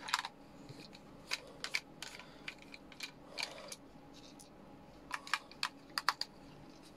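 Light, irregular clicks and ticks of a small screwdriver turning a screw in the plastic casing of a plug-in power meter, with the casing handled in the fingers; a quick run of clicks comes about five to six seconds in.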